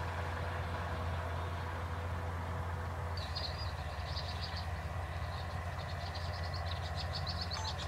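Insects chirping in fast, high-pitched pulsed trills, starting about three seconds in and coming in bouts of a second or two. Under them is a steady low hum.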